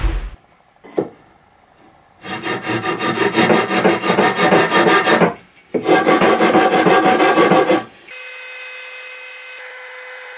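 Loud rough rubbing of wood against wood or an abrasive, like sanding or rasping, in two long stretches. About eight seconds in, it gives way to a steady, quieter whine of a small trim router running.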